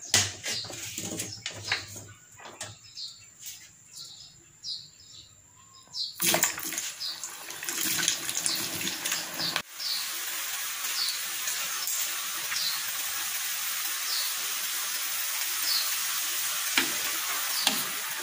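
Cut potato strips going into hot cooking oil in a saucepan about six seconds in, setting off a loud, steady sizzle of deep-frying French fries that carries on. Before that, only faint scattered clicks while the oil heats.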